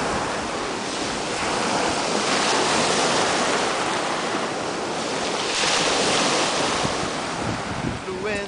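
Small waves breaking and washing onto a pebble beach, with wind buffeting the microphone; the wash swells a few times.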